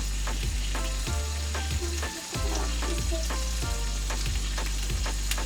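Background music with a steady beat of about two strokes a second over a held bass line that changes note every second or so, with a steady hiss throughout.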